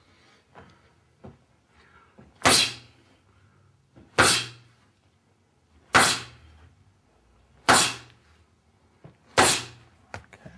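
Five lead hook punches smacking into a hand-held focus mitt, one sharp slap about every 1.7 seconds.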